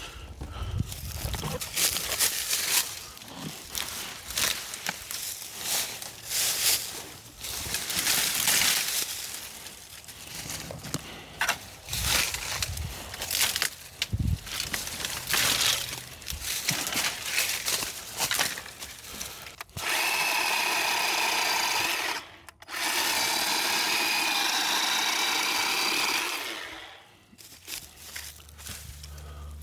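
Brush rustling and dry branches snapping and crackling as limbs are handled, then a Worx WG322 20V cordless electric chainsaw running steadily in two bursts, about 2.5 s and about 4 s long, with a brief stop between them, cutting limbs.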